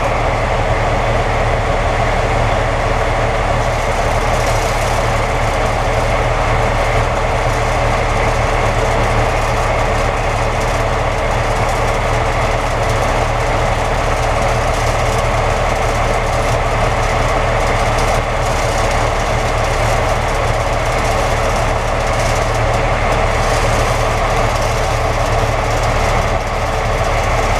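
DB class 225/218 diesel-hydraulic locomotives idling steadily, their V12 diesel engines giving a constant low drone.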